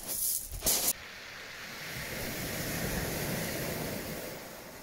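Surf on a shingle beach: after about a second of sharp rustling and knocks, a wave's wash swells and then fades away over about three seconds.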